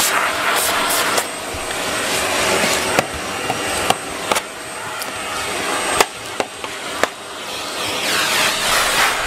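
Canister vacuum cleaner running steadily with a high whine, its nozzle sucking over a foam floor mat. A few sharp knocks sound as the nozzle works along the furniture.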